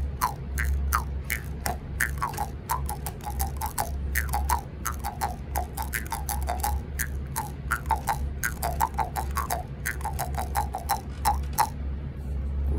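Homemade jaw harp cut from a plastic gift card, played at the lips in the karinding style: a fast, uneven run of sharp clicky strikes over a steady low drone, the ringing note of each strike shifting in pitch as the mouth changes shape. The playing stops near the end.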